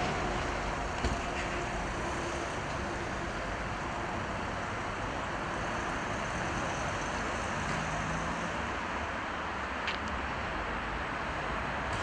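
A Ford Transit van's engine running as the van moves slowly off, under a steady outdoor noise haze, with a short knock about a second in.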